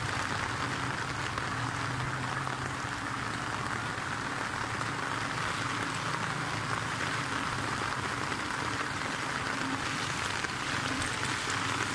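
Steady, continuous rain falling on floodwater.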